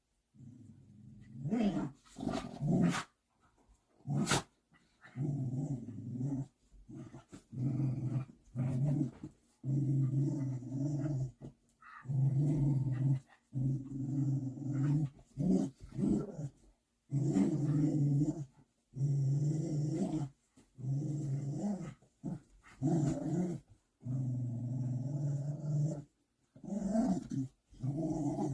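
Dog growling low in repeated bouts of a second or two with short breaks between, and a short sharp sound about four seconds in.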